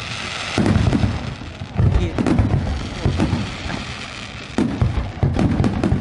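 Aerial fireworks shells bursting one after another: a rapid series of booms and sharp cracks, coming in clusters, with a hiss of crackling near the start.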